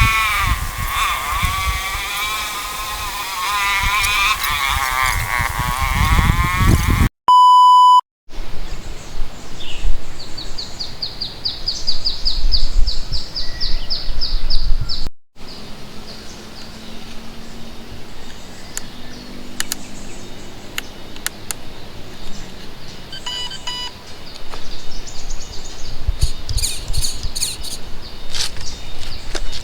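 A bleating animal call wavering up and down, then a loud one-second electronic beep tone. After that comes a rapid run of short high chirps over steady outdoor background noise.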